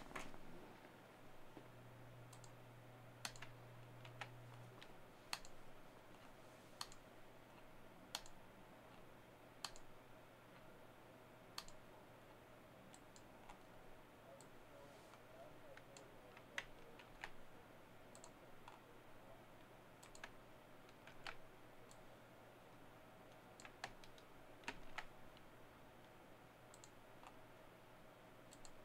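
Faint, irregular clicks of a computer mouse and keyboard, one every second or two, over a low steady hum.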